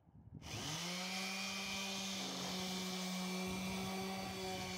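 Hyper Tough random orbital sander with an 80-grit disc switching on about half a second in: a quick rising whine as it spins up, then running steadily against a rough wooden fence slat.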